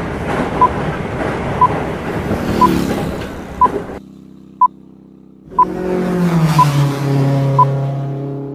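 Countdown beeps of a film-leader intro: a short, high beep once every second over a rushing noise. Near the end a low hum slides down in pitch.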